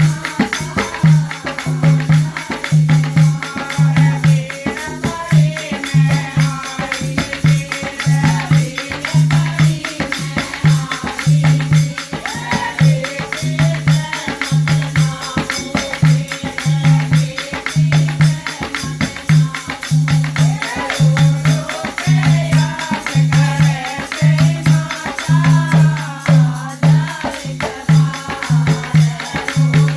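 Haryanvi folk devotional song music: a steady low drum beat about once a second under a wavering melody.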